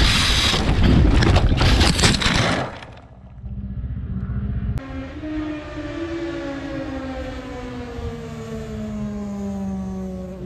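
Kawasaki Z1000J crashing when its front tyre slips at about 100 km/h, heard from the onboard camera: loud scraping and rushing noise of the bike sliding down the track for about three seconds, then it breaks off. After that, a steady droning sound slowly falls in pitch.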